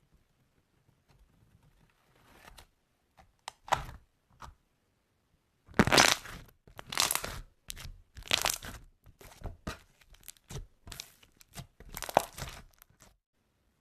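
Slime being pressed and squeezed, giving clusters of sharp crackles and pops. It starts faint and grows to a dense run of crackling about halfway through.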